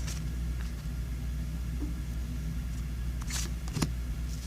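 Trading cards being handled, with two brief rustles of card sliding against card about three and a half seconds in, over a steady low background hum.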